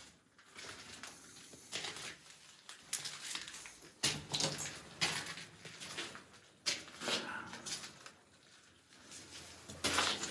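Footsteps crunching on grit and rubble inside a small concrete bunker room, an irregular series of crunches, one or two a second.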